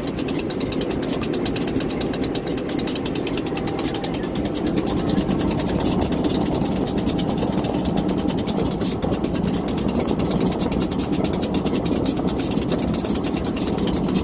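Diesel locomotive engine idling steadily close by.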